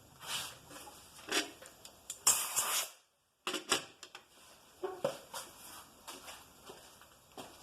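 Scattered clicks and knocks of metal tools and parts being handled, with a louder rattling clatter a little over two seconds in. The sound drops out completely for a moment about three seconds in.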